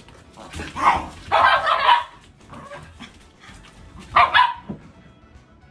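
A Siberian husky and a Shiba Inu play-fighting, with loud barks: a short one about a second in, a longer run just after, and another about four seconds in.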